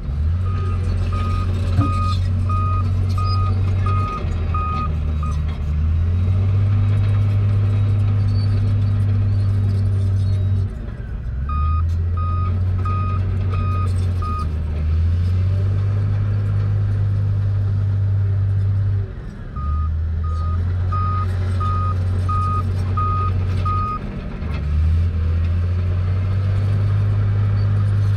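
Motor grader's heavy diesel engine running under load. Its pitch dips and steps back up a few times. A reversing alarm beeps in three runs of five to seven evenly spaced beeps.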